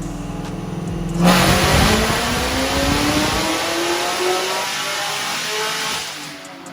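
Car engine running steadily, then about a second in going to full throttle: a sudden loud surge, with the engine's pitch climbing steadily as it accelerates hard, then fading away near the end.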